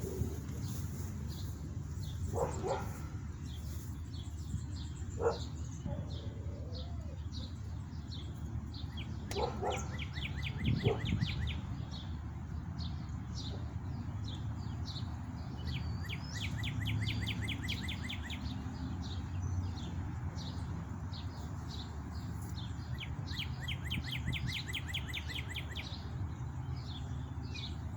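Songbirds singing and chirping, with several rapid trills of quickly repeated notes, over a steady low wind rumble on the microphone. A few soft knocks come in along the way.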